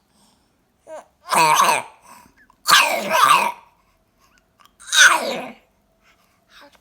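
Cat coughing: three harsh coughs about two seconds apart, the middle one doubled.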